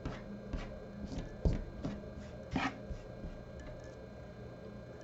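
A handful of small clicks and taps from fly-tying tools and thread being handled at the vise, the loudest about one and a half seconds in and another just before three seconds in.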